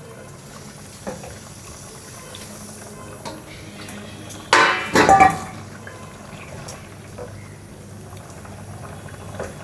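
A wooden spatula stirring chhana balls and potatoes through a simmering curry in a kadai, with soft scrapes and light knocks against the pan. A louder, brief sound comes about halfway through.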